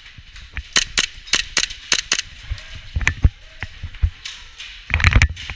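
Airsoft gunfire: a quick string of sharp shots, about five a second, then scattered heavier knocks and a dense cluster of them near the end.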